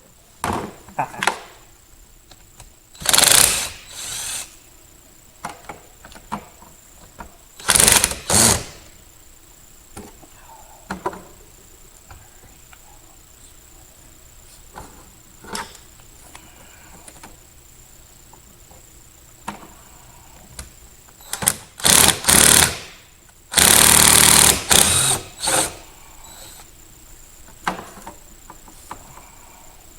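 A cordless power tool run in several short bursts, undoing the fasteners of the car's factory air box; the longest burst, about a second and a half, comes a little over three quarters of the way through, with light clicks and handling noises between the bursts.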